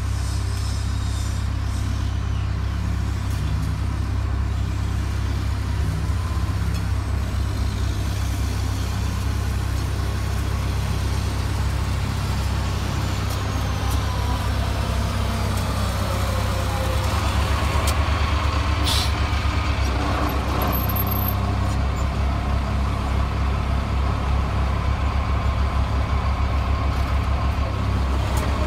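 Diesel engine of a Caterpillar 135H motor grader running steadily while finish grading. It grows louder about two-thirds of the way through as the grader comes alongside, with a falling tone as it passes.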